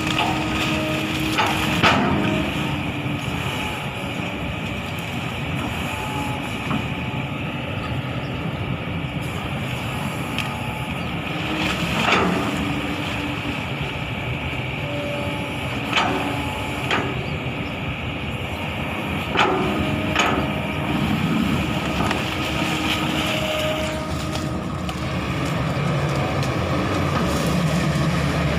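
Kobelco SK200 excavator's diesel engine running steadily, with several sharp knocks of the machine's steel parts at irregular intervals.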